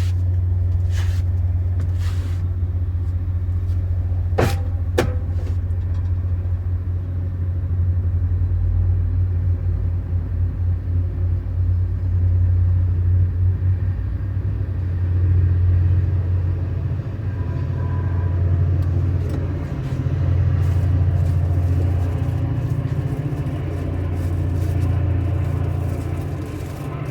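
Steady low rumble of a motor vehicle on the road, with two sharp clicks about four and a half seconds in.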